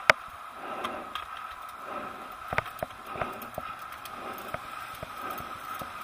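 Bicycle riding along a city street: irregular clicks and rattles as the bike goes over the pavement, over a faint steady whine and road noise.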